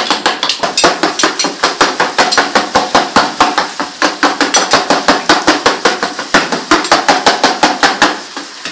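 Rapid, steady tak-tak clatter of a metal spatula chopping goat offal against a frying pan, several strikes a second. The strikes stop near the end.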